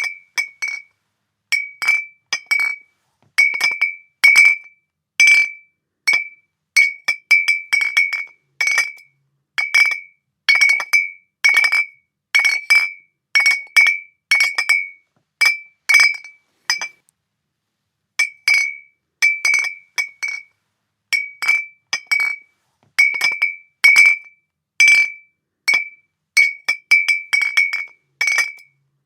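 Glass bottles clinking against each other: many quick ringing clinks, often two or three close together, each ringing at the same bright pitch, with one short pause a little past halfway.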